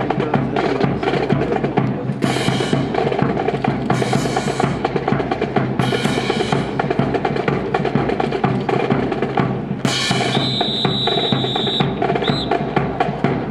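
Drum cadence of snare rolls, bass drum and cymbal crashes keeping time for a marching rifle drill, with crashes about every two seconds. About ten seconds in, a high steady tone sounds for over a second, followed by a brief second one.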